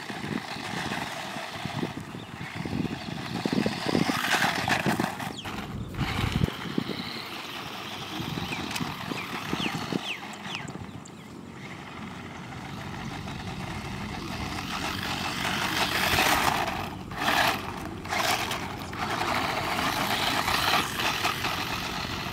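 DeeRC 300E RC car's electric motor whining and its tyres skidding on loose dirt as it drives fast around the field, getting louder several times as it comes closer.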